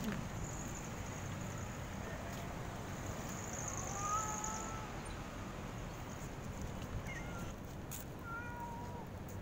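Stray cats meowing faintly: a drawn-out meow about four seconds in and a few short meows near the end, over steady low background noise.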